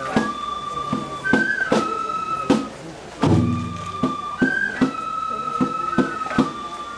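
Festival procession music: a flute playing long held notes that step between a few pitches, over sharp, irregularly spaced percussion strikes.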